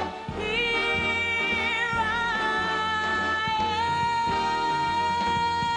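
Live band music in an instrumental passage between songs, with long held notes and one steady high note sustained through most of it.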